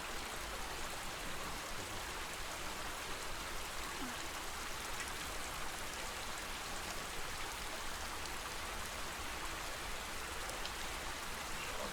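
Steady lake water ambience: an even wash of water noise with a few faint ticks of small splashes and a low rumble underneath.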